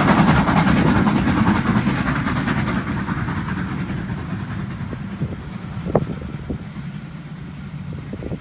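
Steam-hauled passenger train running away: the locomotive's exhaust beats and the rumble of the train fade steadily as the coaches roll past, with a few sharp clicks of wheels over rail joints from about five seconds in.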